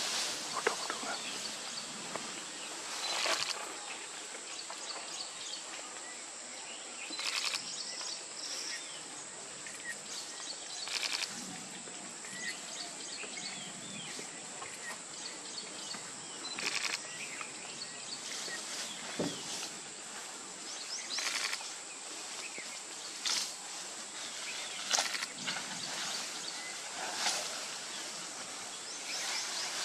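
Outdoor natural ambience: a steady high hiss with bird chirps here and there and occasional short rustles or knocks.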